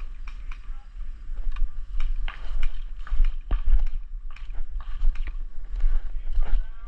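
Irregular clicks and knocks, a few a second, from a player moving with airsoft gear, over a steady low rumble on the body-worn microphone.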